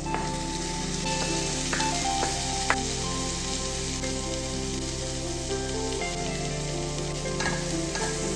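Food sizzling while frying in a pan, with a few sharp clicks of a spatula against the pan about two seconds in.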